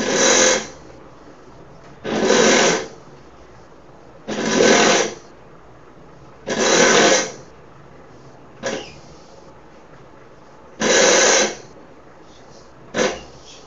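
The wiper motor of a homemade rain-sensing wiper rig sweeping the blade across a glass panel, the wiping set off by water on its sensor. Five bursts of motor and blade noise come about two seconds apart, with a longer pause after the fourth, and there are two short clicks.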